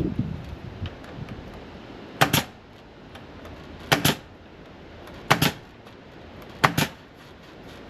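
Nail gun firing four times, roughly one shot every second and a half, each a sharp double crack as it drives a nail into rafter timber.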